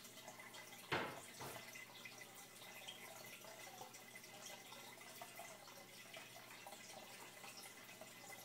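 Aquarium bubbles rising and breaking the water surface: a faint steady trickle with many tiny pops and drips. One sharp tap about a second in.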